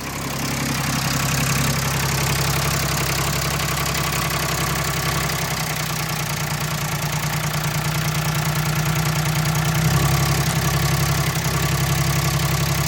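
A 2006 Hyundai Sonata's 3.3-litre six-cylinder engine idling steadily, heard up close under the open bonnet. The owner reports a noise from one side of this engine. It gets slightly louder about ten seconds in.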